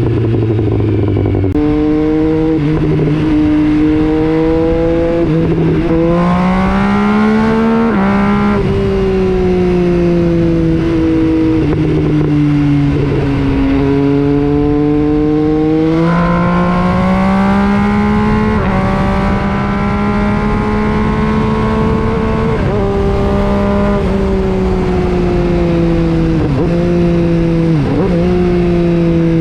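MV Agusta Brutale 800's in-line three-cylinder engine through an FM Projects aftermarket exhaust, under way. The note climbs and falls repeatedly, with many gear changes where the pitch drops suddenly.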